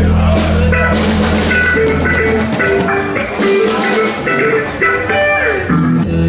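Band instruments being tried out at a sound check, amplified: a held bass note that dies away about two and a half seconds in, loose runs of short guitar or keyboard notes, and a few drum-kit cymbal hits, not yet playing a song together.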